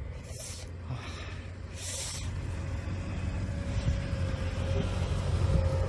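An engine running steadily with a low rumble and a thin hum, growing slowly louder. Two short rustles come near the start and about two seconds in.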